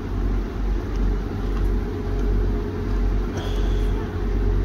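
Class 175 diesel multiple unit standing at the platform with its Cummins diesel engines idling: a steady low rumble with a constant hum. A brief high tone sounds about three and a half seconds in.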